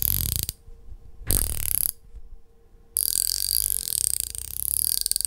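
A 1/4-inch ratchet being worked back and forth, its pawl clicking rapidly in three runs: two short ones in the first two seconds, then a longer run from about three seconds in.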